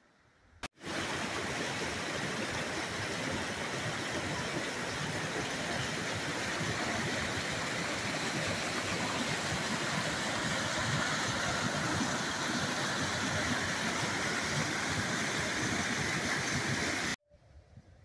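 Rain-swollen stream pouring over rocks as a small waterfall, a steady rush of water that starts abruptly about a second in and cuts off sharply near the end.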